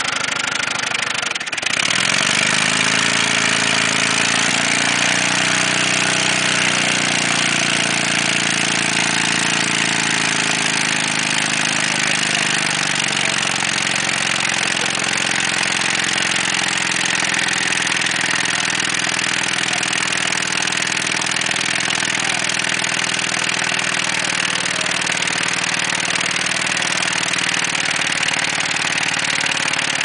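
Ford Taurus engine running with no oil in the pan, knocking from a failing connecting-rod bearing (rod knock).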